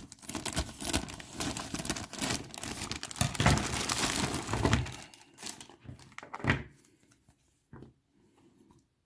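Plastic bag crinkling and tearing as it is opened, dense and loudest about three to five seconds in, then a few light clicks and rustles as the plastic miniature parts inside are handled.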